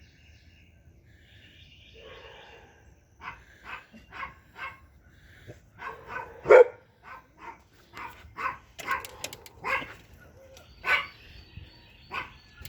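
Dogs barking repeatedly from a little over three seconds in, one or two barks a second, with the loudest bark about halfway. Before the barking, a bird sings faintly.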